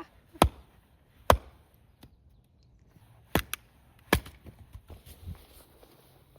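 Firewood being chopped: about five sharp strikes of a blade into wood, spaced irregularly, two of them in quick succession a little past halfway.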